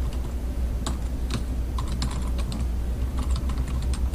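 Computer keyboard being typed on: irregular runs of keystroke clicks with short pauses between them, over a steady low hum.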